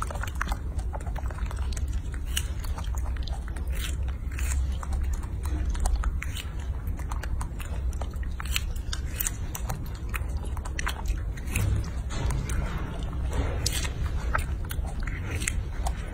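Baby monkey biting into and chewing a large strawberry: a close, irregular run of small clicks and smacks from its mouth, over a low steady rumble.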